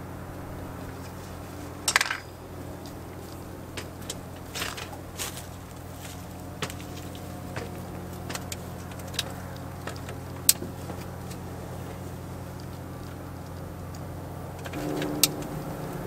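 Metal clinks and clicks of a socket and extension being handled and snapped onto a quarter-inch cordless impact driver, with the loudest rattle about two seconds in and a sharp single click near the middle, over a steady low hum.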